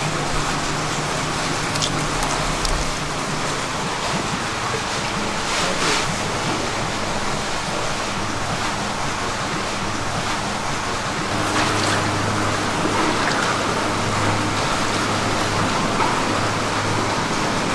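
Steady rush of running water, with a low hum starting about two-thirds of the way through and a few brief clatters.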